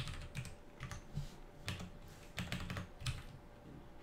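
Typing on a computer keyboard: keys clicking in short, irregular bursts.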